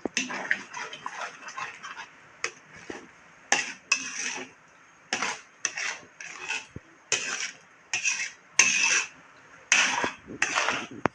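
A utensil stirring spaghetti sauce in a frying pan, scraping and clattering against the pan: a busy run of clatter at first, then separate scraping strokes about once or twice a second.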